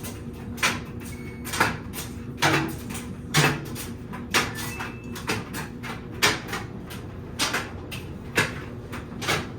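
Samsung laundry machine running a cycle: a steady motor hum with a swishing thump about once a second as the drum turns and the load tumbles.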